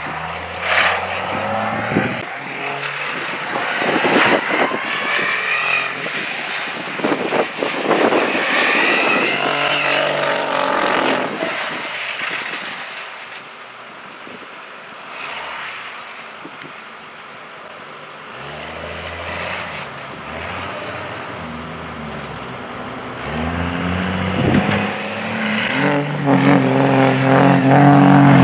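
Mega truck's diesel engine revving and running as it drives through mud, its pitch rising and falling. It drops back for a few seconds in the middle, then builds louder again near the end.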